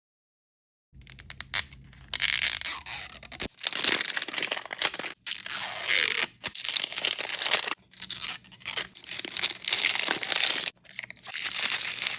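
Blind-bag packaging being torn open and crinkled by hand, in repeated bouts with brief pauses, after a few sharp clicks about a second in.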